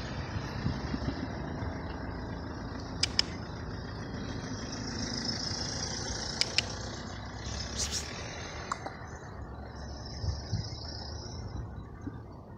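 Road traffic: a motor vehicle's engine running steadily, with a few short sharp clicks scattered through.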